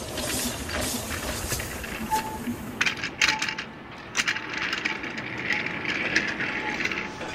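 Plastic toy trains being pushed by hand along plastic track, with irregular clicks and rattles, thickest about three seconds in.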